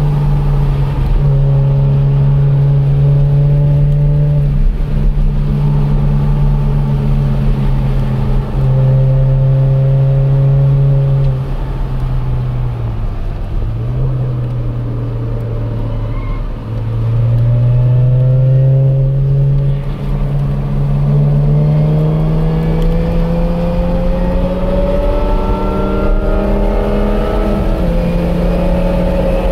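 A car's engine at speed on a road course, heard from inside the car. It holds a steady pitch, drops about twelve seconds in as the car slows for a corner, then climbs steadily under acceleration through the second half.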